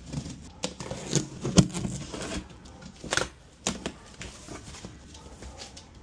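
Cardboard shipping box being cut open with a utility knife and its flaps pulled back: irregular scraping, tearing and clicking, with a few sharp snaps.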